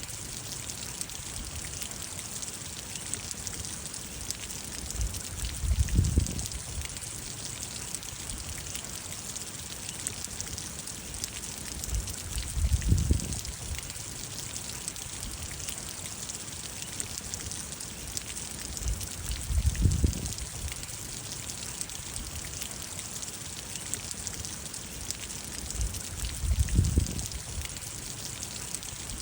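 Steady rain falling, a dense patter of drops, with a low rumble that swells for about a second roughly every seven seconds.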